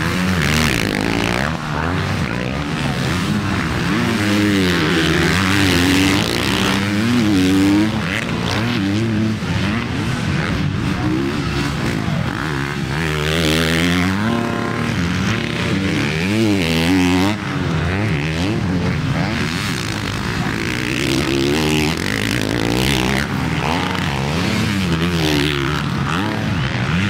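Motocross bikes racing: engines revving up and down through the gears as riders accelerate and back off, with more than one bike heard at a time.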